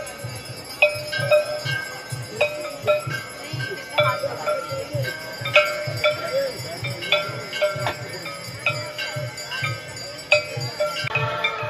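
Aarti bells ringing in quick, repeated strokes, two to three a second, over a steady beat of low drum thumps.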